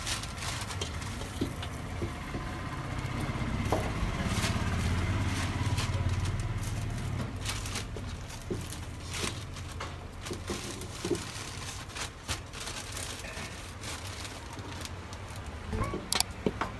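A metal ladle knocking and scraping in an iron wok as fried chicken momos are lifted out: scattered sharp clicks, a cluster of them near the end, over a steady low rumble that swells a few seconds in.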